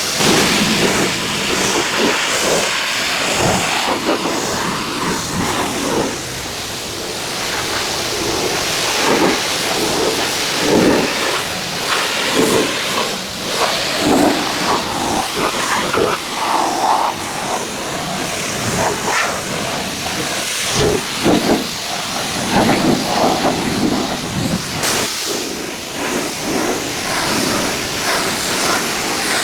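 High-pressure washer spray hissing, its sound rising and falling unevenly as the jet plays over the car's surfaces.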